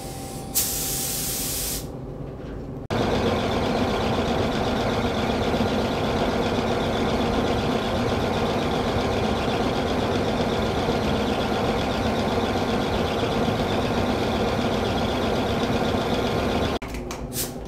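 Gravity-feed paint spray gun spraying clear coat: a short burst of high air hiss about half a second in, then from about three seconds a steady, louder rush of compressed air that cuts off suddenly near the end.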